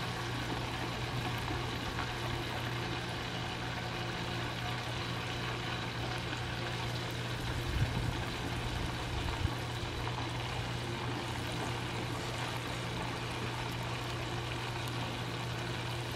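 Frog legs deep-frying in hot oil in a cast-iron pot: a steady sizzle and bubble, with a couple of soft knocks about halfway through. A faint low hum runs underneath.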